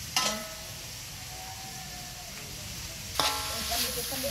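Metal spatula clanking against a metal wok while duck meat sizzles: one ringing clank just after the start, then quieter sizzling, then a run of clanks from about three seconds in.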